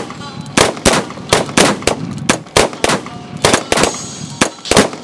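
Gunfire in a shootout: about a dozen sharp shots at uneven intervals, two to three a second.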